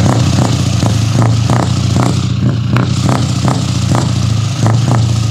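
Scania truck engine running, heard close to its short side-exit exhaust pipe: a loud steady low rumble with sharp crackles from the pipe a few times a second.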